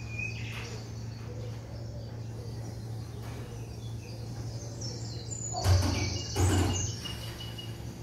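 Faint birds chirping over a steady low hum, with two short, louder noisy bursts about two-thirds of the way through.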